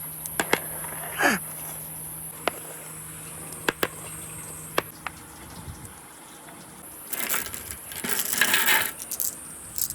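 Glass marbles clicking against each other and the wooden gutter chute, a few single sharp clicks spread over the first five seconds, then a dense rattling rush of marbles and water lasting about two seconds near the end.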